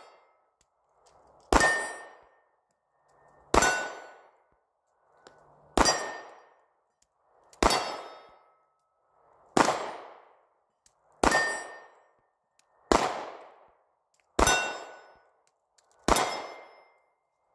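Glock 43X 9mm pistol fired nine times in slow, steady succession, one shot about every two seconds, each followed by a short ringing tail.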